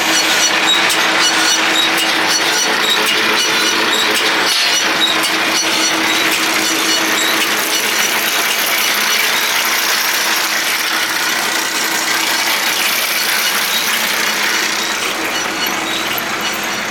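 John Deere 568 round baler running, driven by its tractor: a steady mechanical clatter and hum.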